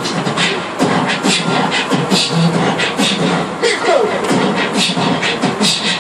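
A woman beatboxing into a handheld microphone held cupped against her mouth: a fast, steady run of percussive mouth clicks and hits, with short pitched vocal sounds mixed in.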